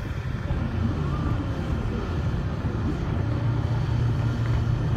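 Steam traction engine working hard as its driving wheels slip while it tries to climb onto a low-loader ramp, giving a steady low rumble.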